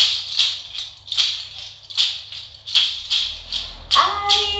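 Chajchas, a northern Argentine rattle of dried goat hooves, shaken in a steady rhythm of about two to three clattering shakes a second. A sung melody comes in near the end.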